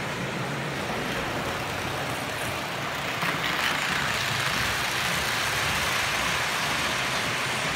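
HO-scale model train running along its track: a steady rolling noise that grows louder about three seconds in as the train passes close by.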